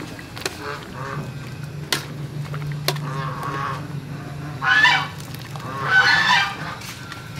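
A goose calling twice in the second half, each call about half a second long and a second apart, over a few light clicks of metal tongs against a steel wok.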